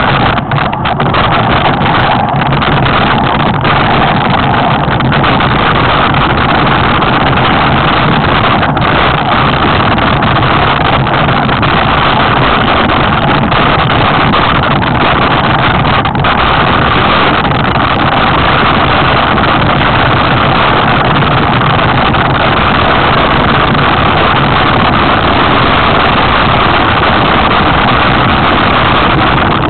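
Loud, steady wind rush on the camera microphone of a mountain bike moving fast downhill, mixed with tyre and frame rumble, with a few sharp knocks from rough ground in the first few seconds.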